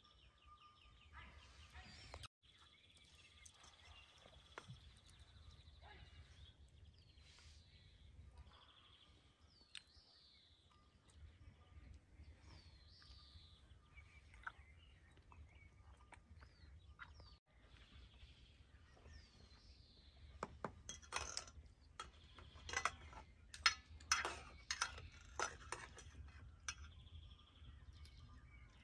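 Quiet outdoor ambience with birds calling and chirping. In the last third, cutlery clinks repeatedly against metal plates as people eat; these sharp clinks are the loudest sounds.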